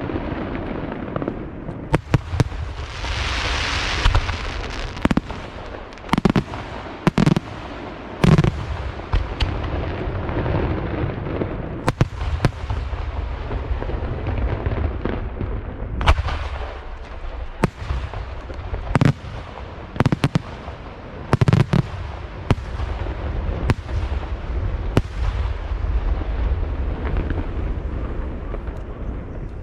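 Aerial fireworks going off in a rapid, irregular series of sharp bangs over a continuous low rumble, with a brief hissing rush about three seconds in.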